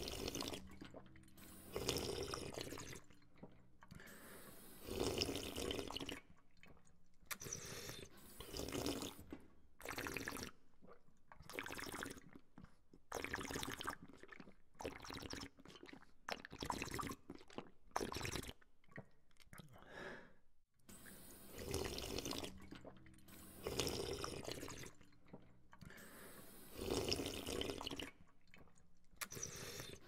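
A person drinking from a water fountain: the water stream splashes, and the sips come in irregular bursts every second or two.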